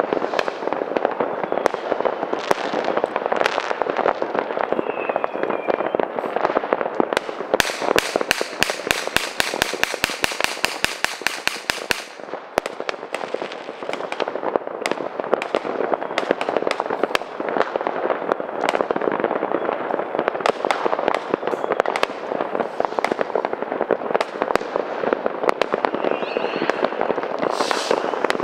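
New Year's Eve fireworks and firecrackers banging and crackling in a dense, unbroken barrage. About seven seconds in, a rapid, even run of cracks, several a second, goes on for about four seconds.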